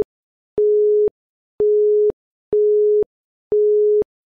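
Quiz countdown timer beeping once a second: four identical half-second beeps of one steady tone, ticking off the last seconds before the answer.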